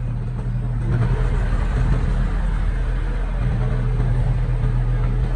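Diesel engine of heavy earthmoving equipment running steadily under load, getting louder about a second in.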